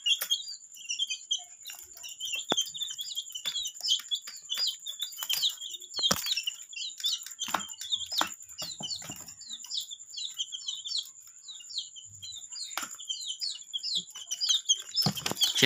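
Baby chicks cheeping in a group: a constant stream of short, high peeps, with scattered light taps and clicks.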